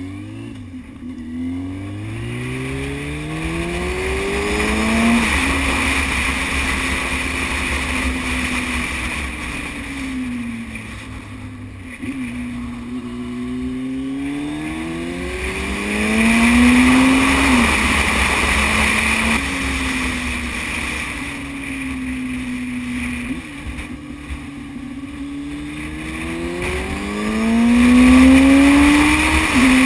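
Yamaha Thundercat motorcycle's 600 cc inline-four engine under way, rising in pitch as it accelerates and dropping sharply at each gear change, several times over, with stretches of easing off in between. A steady low rumble of wind sits underneath.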